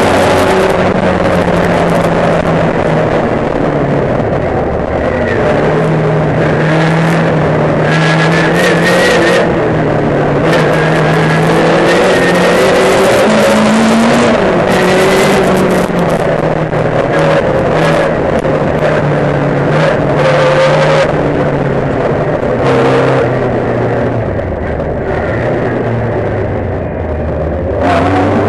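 Racing car engine at full race pace, heard from inside the car's cabin. The revs climb and drop again and again through gear changes and braking for corners.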